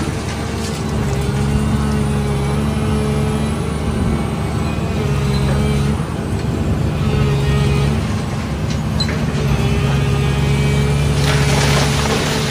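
Volvo EC700CL high-reach demolition excavator's 16.1-litre diesel engine and hydraulics running under load, the engine note swelling and easing as the arm works. Near the end comes a rush of falling rubble.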